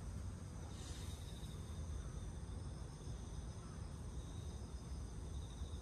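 Steady high-pitched insect chirring over a low, even rumble.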